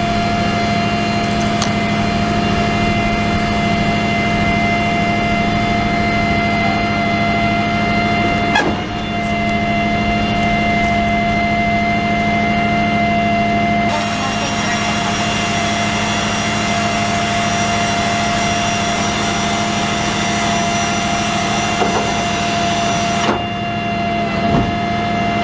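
A tracked multiple rocket launcher's engine running steadily, with a constant whine over it, while a rocket pod is hoisted onto the vehicle.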